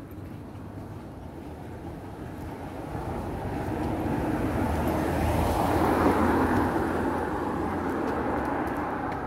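A vehicle passing by: its noise grows over a few seconds, peaks about two-thirds of the way through, then fades.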